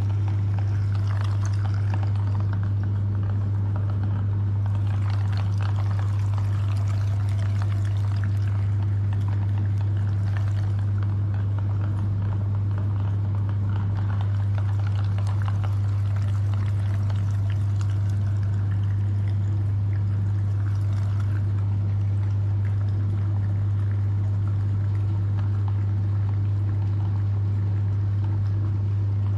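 Electric meat grinder running with a steady low hum, while jelly is squeezed through it with a continuous wet squelching and crackling.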